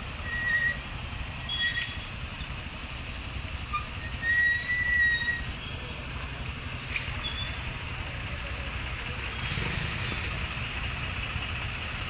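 Slow road traffic: the engines of a bus, trucks and motorcycles running in a steady low rumble, with short high-pitched squeaks or chirps over it now and then.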